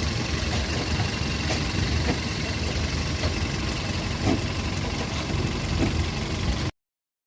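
VW Polo Vivo's 1.4 CLP four-cylinder petrol engine idling steadily, with scattered light ticks, after a new number-1 ignition coil has been fitted to cure a misfire. The sound cuts off abruptly near the end.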